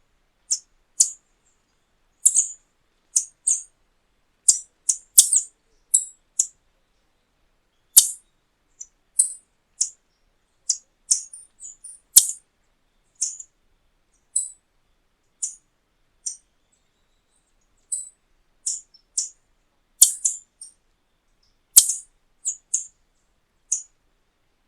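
Tanager giving short, sharp, high-pitched call notes, singly or in quick pairs and clusters, at irregular intervals of roughly a second.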